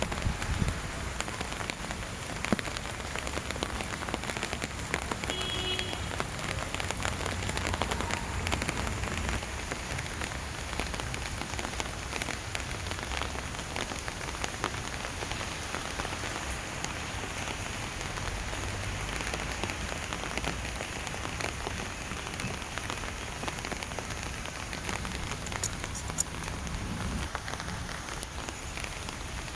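Steady rain falling, with many small drops pattering on surfaces.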